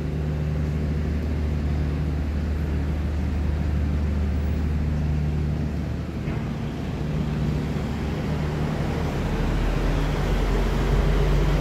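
Street traffic: the steady low hum of a motor vehicle's engine running close by, deepening and growing a little louder about nine seconds in.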